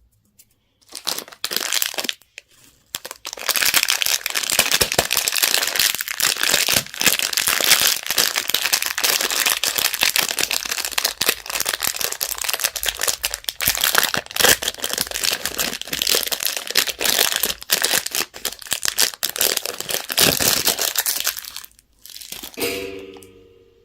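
Wrapper packaging crinkling and crackling continuously as it is handled and opened, with dense irregular crackles for about twenty seconds before it stops.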